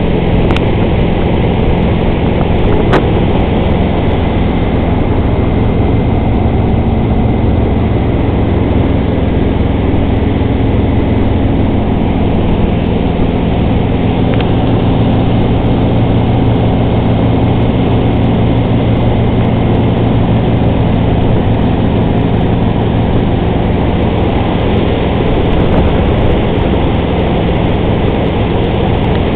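Tow boat's engine running steadily at towing speed, with water rushing past the hull and wake.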